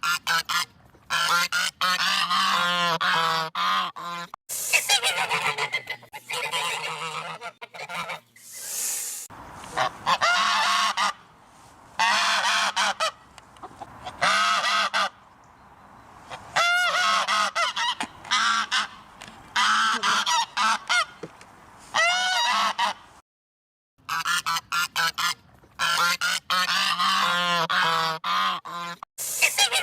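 Geese honking over and over in loud, harsh clusters of short calls, with a few sudden breaks to silence between bursts.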